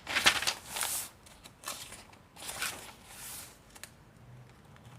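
Paper pages of a handmade junk journal being turned and handled: several short rustles in the first three seconds or so, the loudest in the first second, then a few faint clicks and taps.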